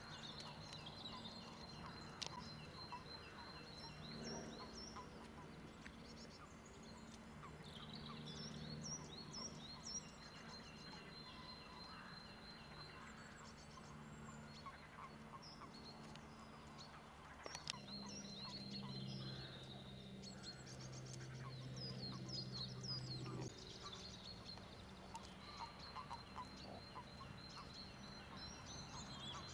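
Small birds singing and chirping in many short, high trills, over a faint low steady drone that swells for several seconds a little past halfway.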